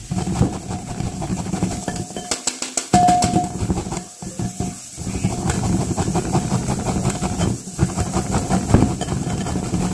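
Metal spoon stirring grated carrot in a glass bowl, with irregular scraping and clinking against the glass.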